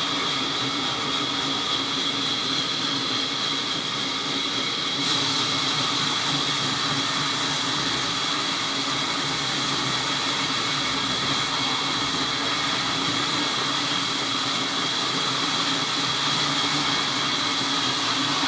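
Sawmill saw machinery running steadily with a constant high whine, its sound getting brighter about five seconds in.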